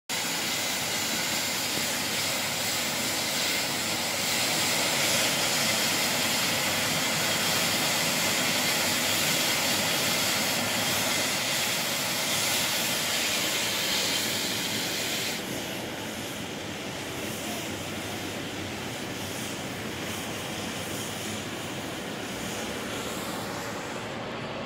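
John Deere tractor running with its rotary sweeper brush spinning on the asphalt, sweeping up winter grit: a steady, loud hissing rush. About fifteen seconds in the high hiss falls away and the sound carries on quieter.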